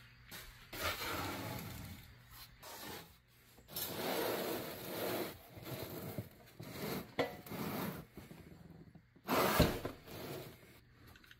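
A cardboard shipping box being handled, rubbed and slid over a wooden floor by gloved hands, in a series of rustling, scraping stretches. A single solid thump about two seconds before the end, as the box is knocked or set down.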